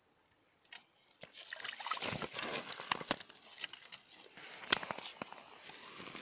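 Wet crunching, slapping and clicking on slushy ice as freshly caught fish are handled on it, starting about a second in, with one sharper click near the end.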